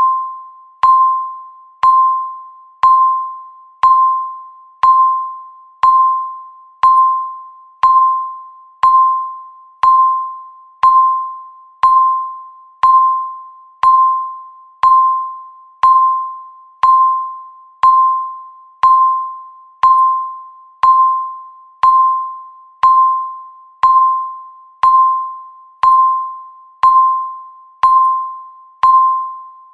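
Countdown timer beep sounding once every second: a single clear electronic tone that starts sharply and fades away before the next, ticking off each second of the countdown.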